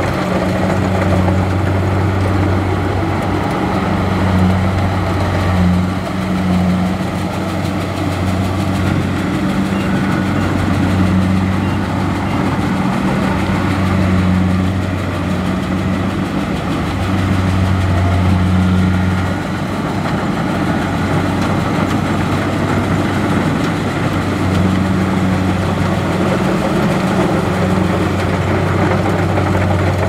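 Kubota crawler rice combine harvester running as it cuts and threshes a paddy, a steady low engine drone that swells and eases every few seconds over a rattle of machinery.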